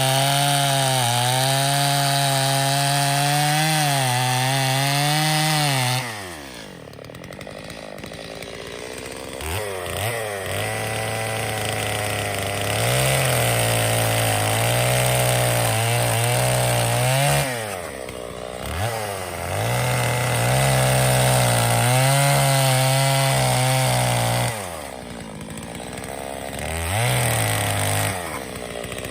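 Two-stroke chainsaw cutting into a log round, its engine pitch wavering under load. About six seconds in it drops to idle, then revs back up and cuts again, with a short dip in the middle and another drop to idle near the end.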